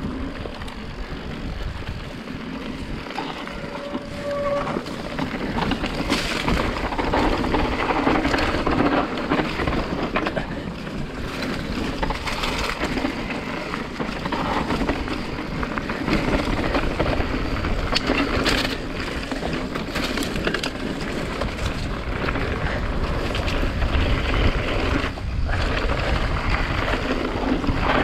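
Mountain bike rolling fast down a dirt forest trail: tyres crunching over dirt and rocks, the bike rattling and knocking over bumps, and wind rushing across the microphone. It gets louder from about six seconds in.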